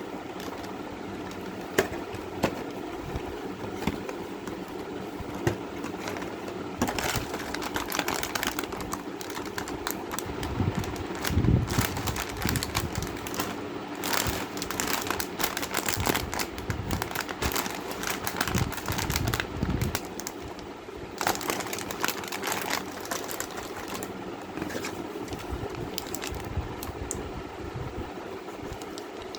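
Snack packaging being handled: plastic wrappers crinkling, with scattered clicks and light knocks over a steady hum.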